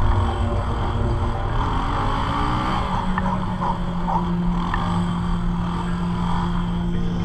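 Honda CRF110F pit bike's small single-cylinder four-stroke engine running as it is ridden, rising a little in pitch about two to three seconds in and then holding steady, with low wind rumble on the helmet microphone.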